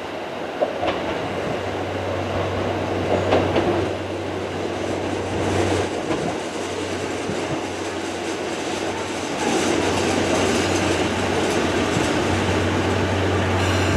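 KiYa 95 diesel track-inspection train running on the rails: a steady diesel engine hum under wheel and rail noise, with a few short clicks from the wheels.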